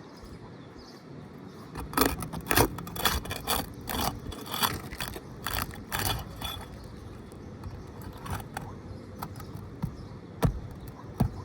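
Steel flat bar scraping and clicking against roof shingles as it is worked under them to break their seal: a quick run of sharp scrapes and taps for several seconds, then a few scattered ones.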